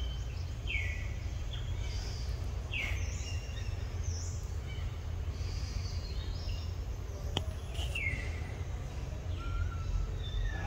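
Birds calling outdoors: several short calls that slide down in pitch, with higher chirps in between, over a steady low rumble.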